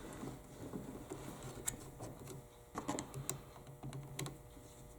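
Light, scattered clicks and taps of hands pushing the two wire ends of a new power cord into a screw terminal block inside a circular saw's housing, several sharp ones in the middle of the stretch.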